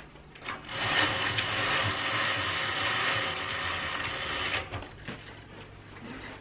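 A roller window shade being raised, its mechanism giving a continuous ratcheting rasp for about four seconds that stops abruptly. Softer rustling of curtain fabric follows.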